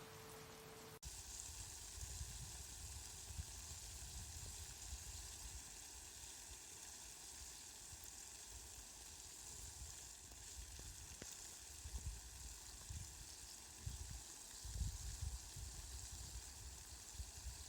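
Steady rain falling: an even hiss that changes abruptly about a second in, where one recording gives way to another. Irregular low rumbles come through, more often in the second half.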